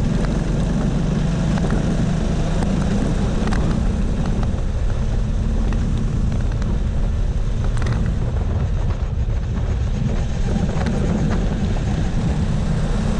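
Go-kart engine running at speed, heard from on board the kart as a steady, heavy low rumble with a haze of mechanical and road noise above it.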